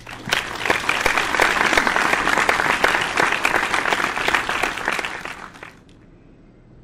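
A crowd applauding, a dense patter of many hands clapping that sets in at once and fades away about five to six seconds in.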